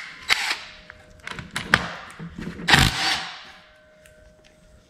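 Hand tools being handled on a workbench: a few sharp metallic clicks and knocks, then a louder clattering scrape about three seconds in, after which it goes quiet.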